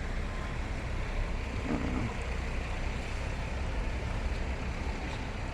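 Steady rushing of a fast-running, high river, with an uneven low rumble of wind on the phone's microphone.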